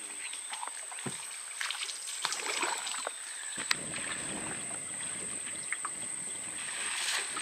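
Water splashing and sloshing around a small boat, thicker from about halfway in, with a few sharp knocks, over a steady high-pitched whine.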